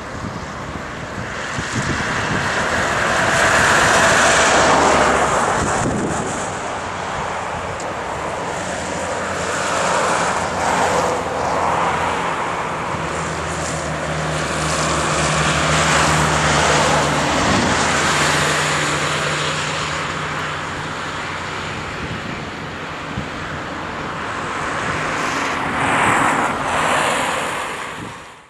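Road traffic noise: vehicles rushing past one after another, a rushing sound that swells and fades several times, with a low engine hum through the middle.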